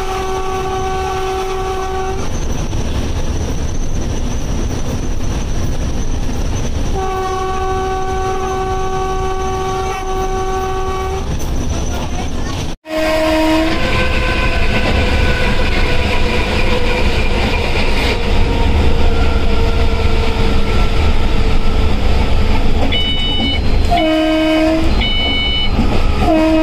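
WAP-5 electric locomotive's horn blowing long steady blasts over the rumble of the train at speed: one held for about two seconds at the start and another for about four seconds a few seconds later. After a brief dropout about halfway through, the running noise is louder, with short horn blasts and a few short high beeps near the end.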